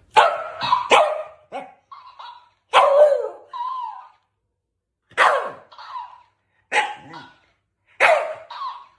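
A dog barking repeatedly in short, irregular bouts, with brief pauses between them.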